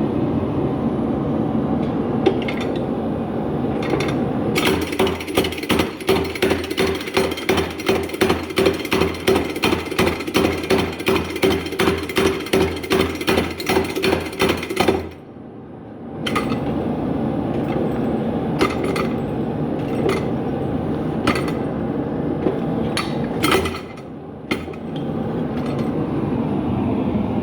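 Homemade leaf-spring power hammer striking hot steel in a steady run of about three blows a second for some ten seconds, with its mechanism running between and after the blows. Single knocks follow in the later part.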